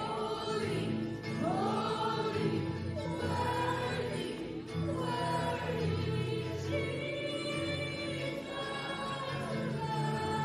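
Contemporary Christian worship music: a group of voices singing over steady, sustained band chords.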